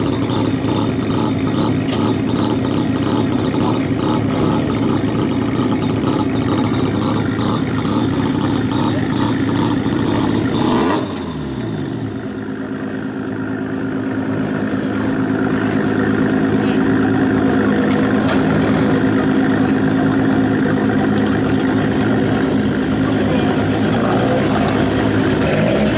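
Old car's engine idling with a lumpy, evenly pulsing exhaust. About eleven seconds in the sound breaks off with a brief falling note, and a smoother, steady engine drone builds over a few seconds and holds.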